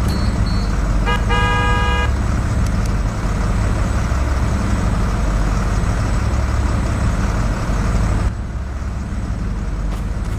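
School bus horn sounding once, briefly, about a second in, over the steady rumble of the bus's idling engine. A rapid high-pitched beeping stops just after the start, and the engine sound drops abruptly in level near the end.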